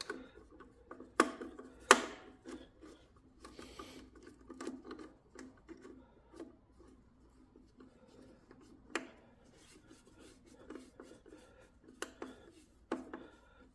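Nut driver tightening nuts on the terminal studs of a generator's steel terminal box: scattered small metallic clicks and scraping, with two sharp clicks in the first two seconds and a few more later on.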